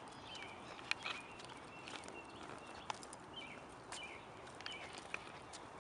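Footsteps on a paved path with scattered light ticks, and short bird chirps in the background.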